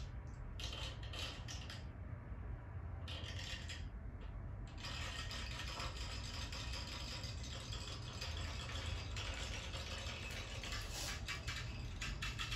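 Rattail comb scratching and rasping through thick curly hair in on-and-off strokes as the hair is parted, over a steady low hum.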